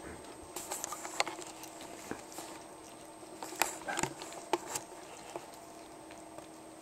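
Pomeranian puppies gnawing their chews and shuffling on a quilted blanket: scattered soft clicks and rustles, bunched about a second in and again around four seconds in.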